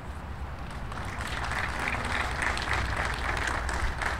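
A small crowd applauding, the clapping building up about a second in and starting to thin out near the end.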